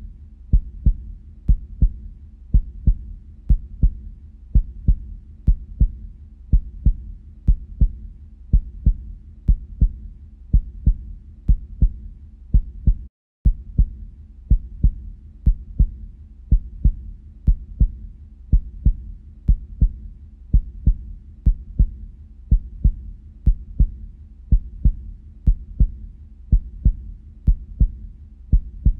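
Recorded heartbeat beating at a steady, even rhythm as a pacing track, with a faint low hum beneath it. The beat drops out briefly about halfway through.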